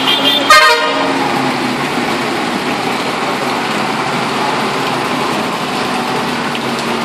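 A vehicle horn toots once, briefly and loudly, about half a second in, over a steady wash of street noise.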